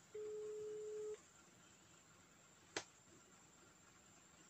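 Telephone ringback tone heard through a phone's speaker: one steady mid-pitched beep about a second long near the start, the called line ringing with no answer yet. A single sharp click a little past halfway.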